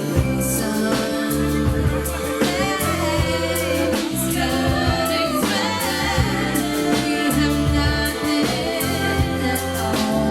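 Band playing a song live, with a singing voice over held bass notes and a steady beat.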